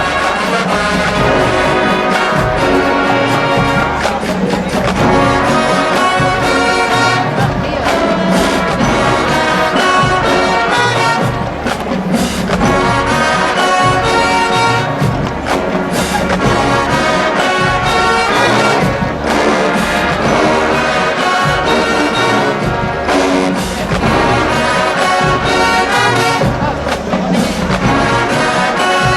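HBCU marching band playing at full volume: trombones and trumpets carrying the tune over a steady drumline beat.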